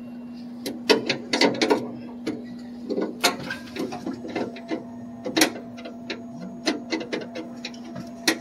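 Irregular clicks and light metallic knocks of hand tools, screws and parts being handled while a drink vending machine's door is taken apart, over a steady low hum.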